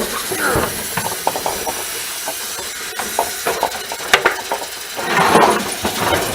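Hand tools clicking and knocking against the dehumidifier's metal and plastic parts as it is taken apart. About five seconds in there is a short, louder rasping burst.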